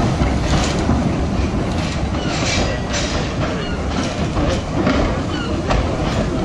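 Narrow-gauge saddle-tank steam locomotive Sir Haydn moving off slowly: a steady rumble with irregular sharp clicks and knocks as it runs over the track.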